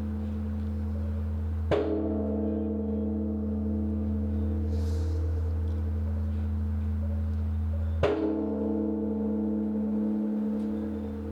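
Large bronze Korean temple bell (beomjong) struck twice, about six seconds apart, with a swinging wooden log. Each strike begins with a knock and rings on in a long, deep hum with a slow pulsing beat. The hum from the previous strike is still sounding at the start.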